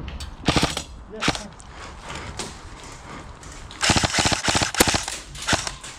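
Airsoft guns firing: a few separate shots in the first half, then a rapid burst of about eight to ten shots about four seconds in.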